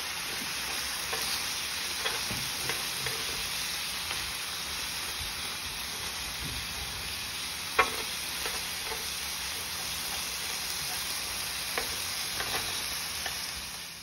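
Sauced meat slices and onions sizzling steadily on a hot plate, with a few light clicks as chopsticks turn the meat, the sharpest about eight seconds in. The sizzle stops near the end.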